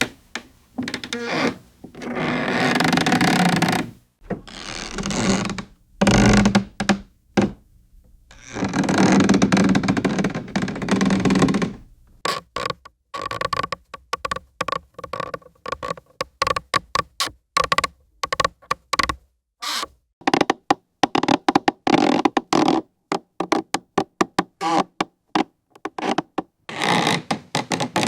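Wooden stairs creaking under footsteps: long drawn-out creaks in the first half, then a quick run of many short creaks and knocks, and a longer creak again near the end.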